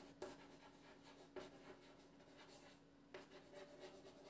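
Faint scratching of handwriting, a few quiet strokes over a low steady hum.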